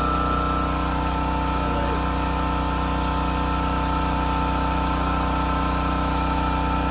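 A motor-driven machine running at an unchanging speed: a constant hum made of several steady tones, holding an even level throughout.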